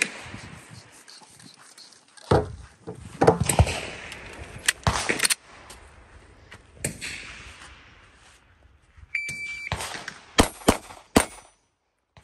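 Handling knocks and clatter, then a shot timer's short start beep, followed about a second later by three quick shots from a Glock 19X 9mm pistol, the last one about two seconds after the beep.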